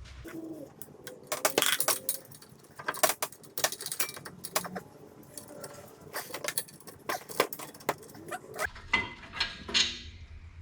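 Irregular metallic clicks and clinks of a socket and breaker bar on a brake caliper bracket bolt as the bolt is worked loose and drawn out.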